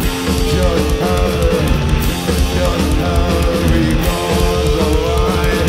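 Heavy rock played live by a two-piece band: distorted electric guitar riffing over a pounding drum kit.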